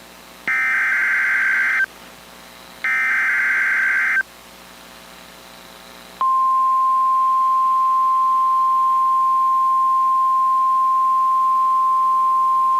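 Emergency alert SAME header: two loud buzzing data bursts about a second apart, closing the header's set of three. About six seconds in comes a steady single-pitched alert tone, the NOAA Weather Radio 1050 Hz warning alarm, which marks the start of a new warning message.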